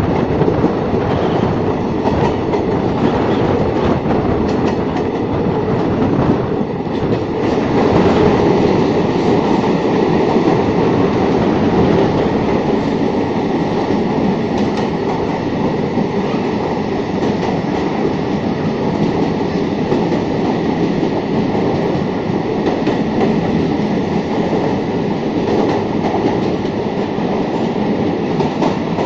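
Express passenger train running fast, its wheels clattering on the rails, heard from the side of a coach. The noise grows a little louder about eight seconds in and stays steady while the train runs through a tunnel.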